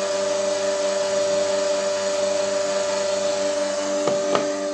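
Small electric screw oil press running steadily with a motor whine, kept running after the almonds have run out so the last oil drains through. A few light knocks come near the end.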